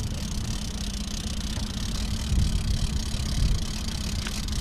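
Small outboard motor on an aluminum boat running steadily at low trolling speed.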